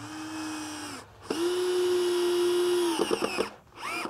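Cordless drill-driver driving screws into wood, in three runs of its motor whine. The longest run is steady and then breaks into quick stutters, followed by a brief final burst.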